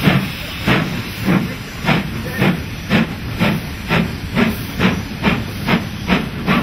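Steam locomotive working hard at speed: exhaust chuffs at about two beats a second, quickening slightly, over a steady hiss of steam.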